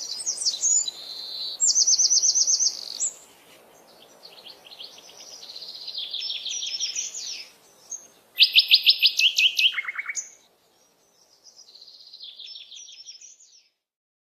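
A songbird singing a run of varied, rapid trilled phrases with short pauses between them. The loudest phrase, about eight seconds in, drops into a lower trill at its end, and a fainter phrase follows before the song stops near the end.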